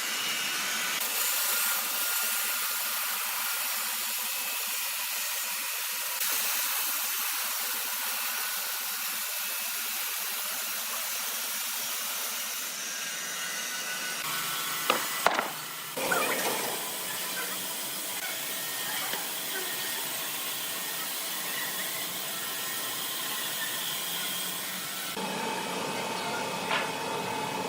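Sawmill saw cutting through logs, a steady hissing rasp of blade through wood that shifts abruptly several times, with a couple of sharp knocks about fifteen seconds in.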